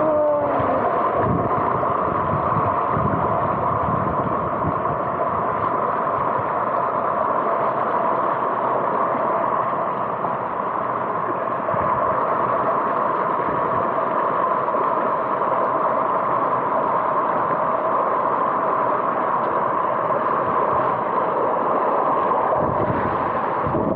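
Water running steadily in a hill stream (burn), an even noise with no breaks.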